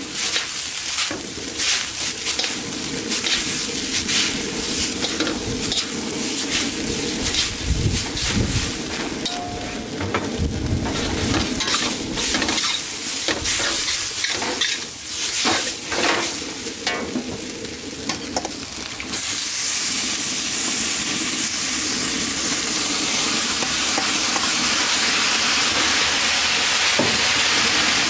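Noodles stir-frying in a hot wok: a constant sizzle with repeated scrapes and clicks of metal utensils tossing the noodles against the steel. About two-thirds through, the sound changes suddenly to a louder, steady hiss as the vegetables and chicken go into the wok and are stirred.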